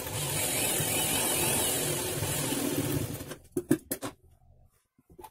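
Sewing machine running steadily as it stitches along a folded fabric strip, stopping about three seconds in. A few sharp clicks follow just after it stops.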